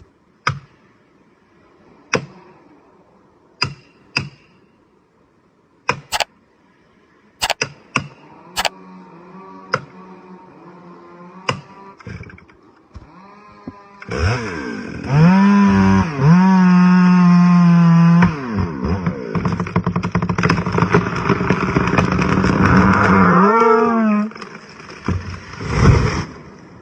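A series of sharp, irregular knocks, then a chainsaw that idles faintly and comes in loud about 14 seconds in, cutting with its pitch dipping and recovering as it bogs under load in the wood.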